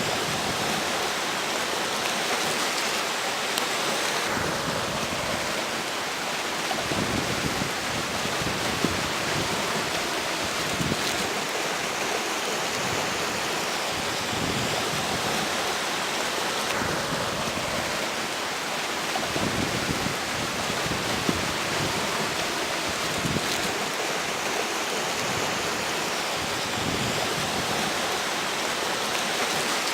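River water flowing steadily, with strong wind blowing over it; the wind gusts several times, each bringing a low rumble on the microphone.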